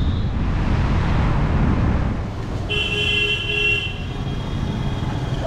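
Street traffic with a low rumble, then a vehicle horn honks for about a second around three seconds in.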